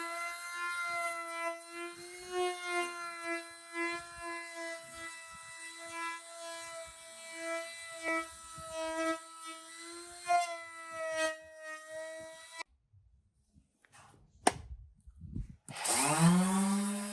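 Electric power-tool motor running with a steady whine that drifts slightly in pitch as the load changes, with scattered clicks. It stops suddenly, there is a single knock, and a motor then spins up with a rising whine that levels off near the end.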